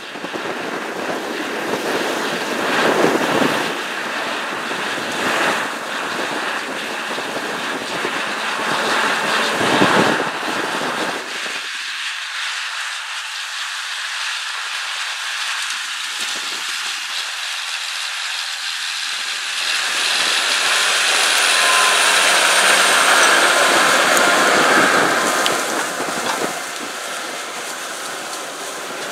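Case IH 9370 Steiger tractor's diesel engine running steadily under load while pulling a disk ripper through corn stalks. It is louder as the rig passes, loudest about three-quarters of the way through as the ripper's disks and shanks go by cutting the soil.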